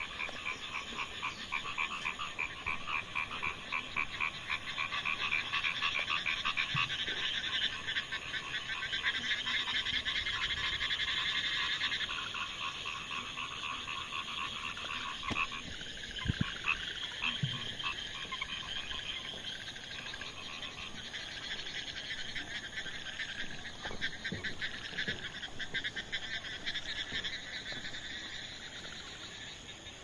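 A chorus of frogs calling in fast pulsed trills. The chorus is dense for the first dozen seconds and thins out after about fifteen seconds, with a few soft knocks around the middle.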